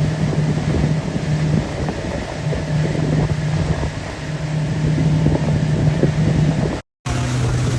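Pontoon boat's outboard motor running with a steady hum, with wind buffeting the microphone. The sound drops out briefly near the end and the motor resumes at a slightly lower pitch.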